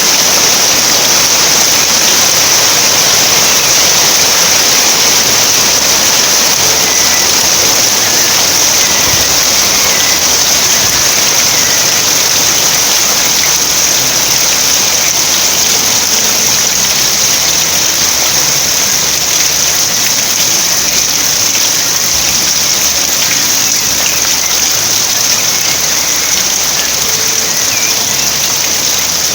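Steady rain falling: an even, unbroken hiss that holds at the same level throughout.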